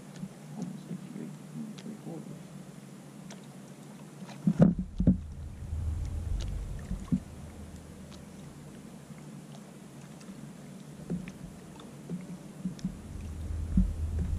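Handling noise in a fishing kayak on the water: scattered small knocks and clicks against the hull, two loud thumps about four and a half seconds in, and stretches of low rumble.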